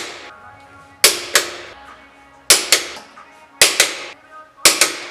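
Background music with a steady beat: sharp, snappy double hits about once a second over sustained tones.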